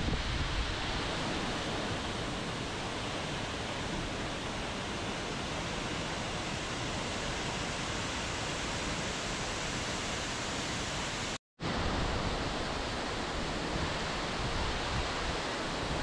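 Waterfall: a steady, even rush of falling water. It drops out to silence for a split second about two-thirds of the way through.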